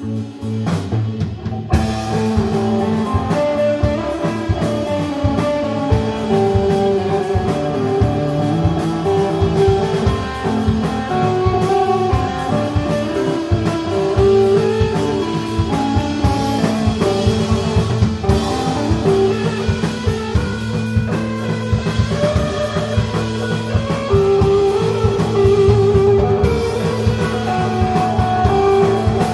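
Live psychedelic stoner rock: a distorted electric guitar plays melodic lines, and the drum kit and cymbals come in about two seconds in and keep a driving beat for the rest.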